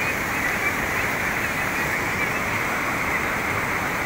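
Steady, even rush of water pouring over rock ledges in a small rocky cascade.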